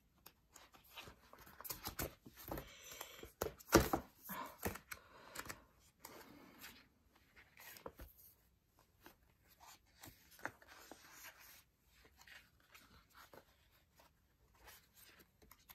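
Paper handling: sticker-book pages rustling and stickers peeled off their backing sheet, a scatter of soft rustles and small clicks. The loudest is a brief rustle about four seconds in.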